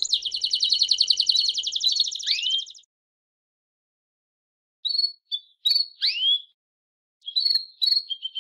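Songbird singing: a fast, high, buzzy trill for about three seconds, ending in a rising whistled slur, then a pause of about two seconds, then short phrases of quick chirps and up-slurred whistles.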